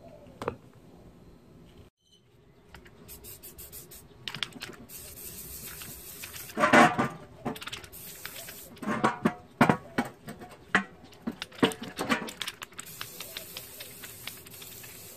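Aerosol spray-paint can hissing in short bursts and then steadily as paint goes onto a metal folding chair, with several sharp knocks and rattles between the bursts.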